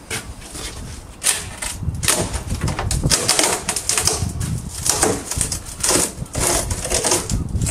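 Wooden beading being ripped by hand off an old door's boarded-over glazing panel: an irregular run of cracking, creaking and scraping wood that starts about a second in.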